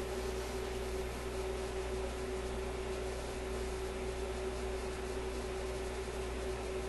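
Steady low hum with a constant faint tone above it and an even hiss, unchanging throughout; no distinct handling clicks or knocks stand out.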